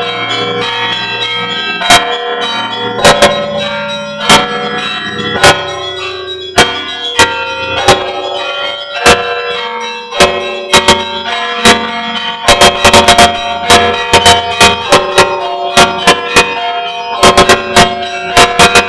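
Orthodox church bells ringing in a peal. A heavy bell is struck about once a second under smaller, higher bells, and about two-thirds of the way in the smaller bells break into quick runs of strokes.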